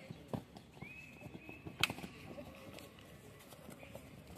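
Faint background of a kabaddi match with a few scattered sharp knocks, the loudest just under two seconds in. A faint thin high tone runs for about a second and a half near the start.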